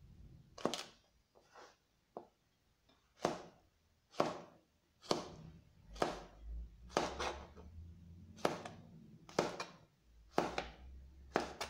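Knife chopping a nopal cactus pad into small pieces on a plastic cutting board: about ten sharp strokes, roughly one a second.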